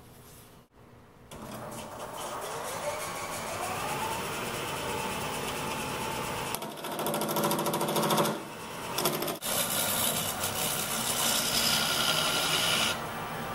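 Variable-speed wood lathe starting about a second in, its motor whine rising as it comes up to speed, then a turning tool cutting into the spinning walnut ring with rough, uneven cutting noise that comes and goes. The cutting stops shortly before the end.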